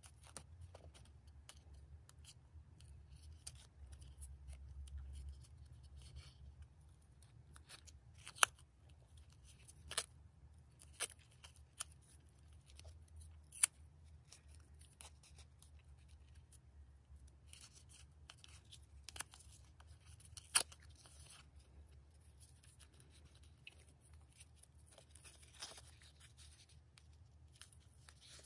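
Grosgrain ribbon being handled and folded by hand around a thin plastic plate: faint rustling with a handful of sharp clicks and taps scattered through, over a low steady hum.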